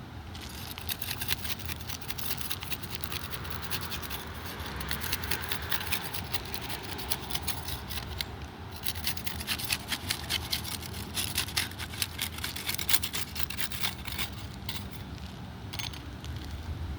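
A scraper tool scraping against asphalt roof shingles in quick, repeated strokes, with a short pause about halfway through and a last brief scrape near the end.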